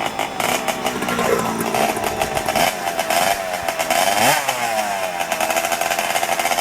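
Vevor 3018 Pro desktop CNC router running with a Genmitsu spindle: a continuous motor whine with several pitched tones that slide up and down, dipping and rising sharply about four seconds in.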